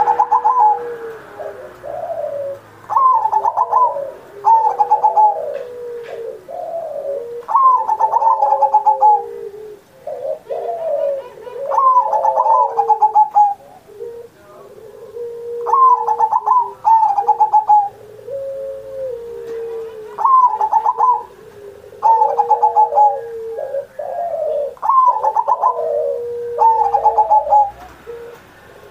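Zebra dove (perkutut) singing its multi-note cooing song over and over, each phrase a quick run of notes ending in a long low coo, the phrases coming a few seconds apart.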